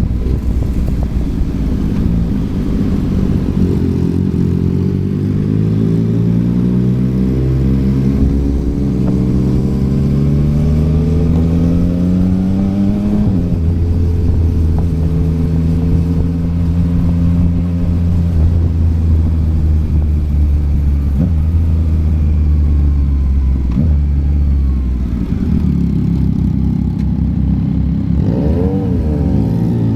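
Yamaha MT-09's three-cylinder engine heard through a Yoshimura R11 exhaust while riding. It climbs in pitch for about ten seconds, drops sharply at a gear change, holds steady, then eases off and revs up briefly near the end.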